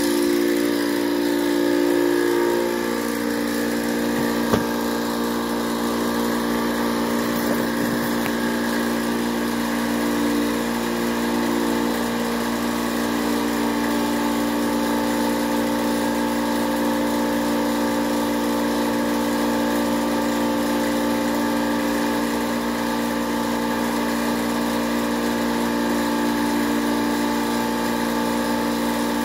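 Air compressor running steadily with an even, multi-toned hum as it draws biogas out of an inner tube and pumps it into a propane tank. One sharp click about four seconds in.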